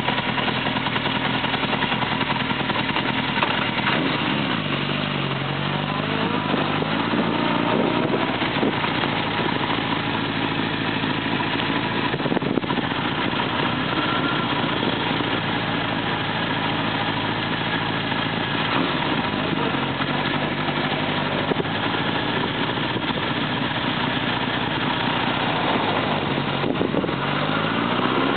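1978 Honda CB750's air-cooled inline-four engine running under way, heard from on the bike. The engine note dips and climbs again a few seconds in, then holds fairly steady and rises near the end.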